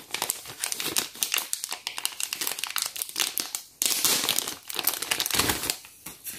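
Thin clear plastic packaging bag crinkling and rustling as a plastic toy roof piece is worked out of it, the crackling stopping shortly before the end.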